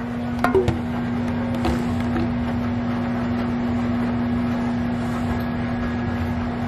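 Microwave oven running with a steady hum, with a few clicks about half a second in.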